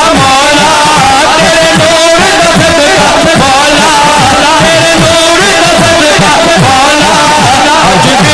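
Male naat singer singing a devotional melody through a microphone and PA, with long, wavering held notes, over a steady low rhythmic backing.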